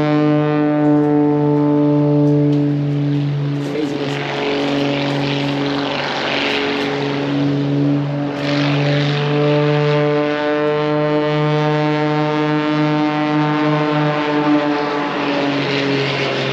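Propeller-driven aerobatic airplane flying a loop overhead: a loud, steady engine drone, with a rushing swell of noise about six to eight seconds in.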